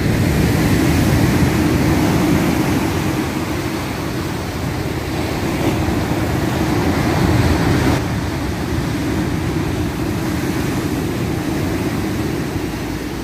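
Black Sea storm surf: large waves breaking and washing ashore in foam, a steady dense rush with a strong low rumble.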